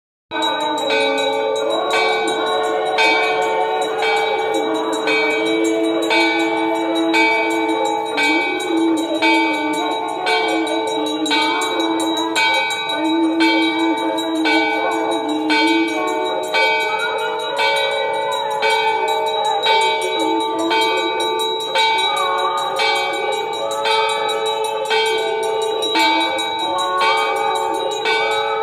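Hindu temple bells ringing continuously during aarti, struck about once a second, with voices chanting over them.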